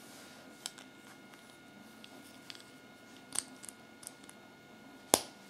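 Small plastic toy parts clicking and tapping as a Kinder Surprise toy skateboard is handled in gloved fingers: a few light clicks, then one sharp, much louder click near the end.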